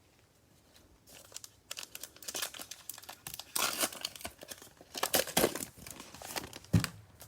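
Plastic cellophane wrapper of a football card cello pack crinkling and tearing as it is ripped open, starting about a second in in irregular crackling spells. There is a single sharp tap near the end.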